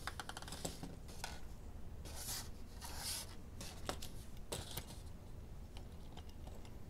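Small clicks, ticks and scrapes as a diecast HO scale steam locomotive is handled and its body shell worked loose from the chassis. There is a quick run of fine ticks about half a second in, a few sharp clicks, and soft rubbing scrapes a little after two and three seconds.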